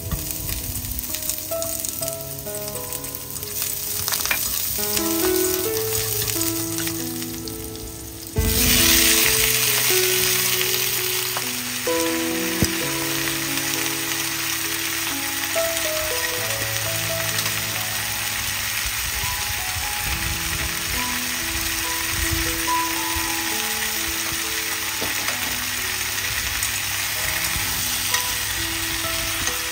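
Food frying in hot oil in a pan: a loud, steady sizzle starts suddenly about eight seconds in and continues. Gentle melodic background music plays throughout.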